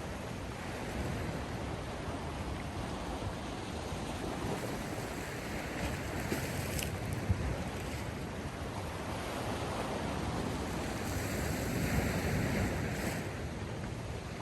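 Sea waves washing onto the shore: a steady rush that swells and fades twice.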